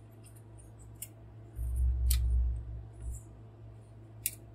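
Hard plastic toy parts clicking as a transforming robot figure is turned over in the hands, a few sharp clicks spaced out. About halfway through comes a dull low rumble of handling noise, the loudest sound.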